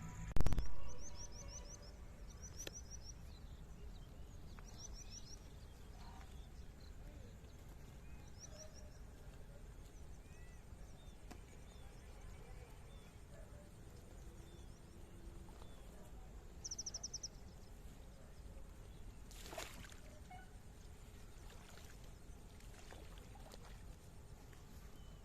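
Open-air ambience with a steady low wind rumble and small birds giving short high chirping trills every few seconds. A sharp thump about half a second in, and a fainter click later on.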